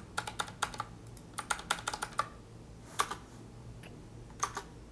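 Computer keyboard keys clicking in irregular bursts: a quick run in the first second, another around a second and a half in, a single click about three seconds in and a pair near the end.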